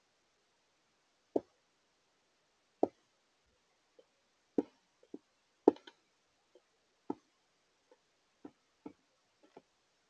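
Carolina wren pecking at sunflower seeds in a clear plastic window feeder: a dozen or so sharp, irregular knocks of its bill against the seeds and tray.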